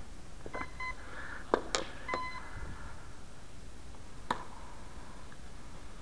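Short electronic beeps, two of them, mixed with a few sharp clicks and taps; the loudest click comes about a second and a half in and another comes near four seconds.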